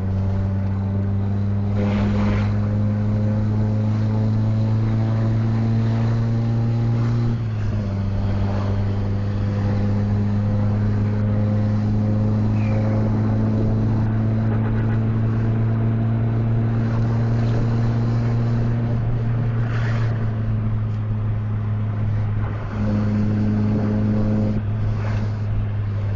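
Coach bus engine running steadily under load with a deep drone. Its pitch climbs slowly, drops suddenly about seven seconds in, and shifts again twice later on, with a few brief passing noises.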